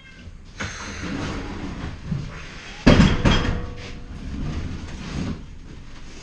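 Workshop handling noise and clatter, with one loud knock about three seconds in that rings briefly.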